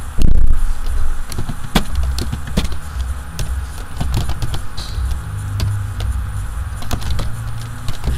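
Computer keyboard typing: irregular key clicks over a loud, steady low rumble, with one heavy thump just after the start.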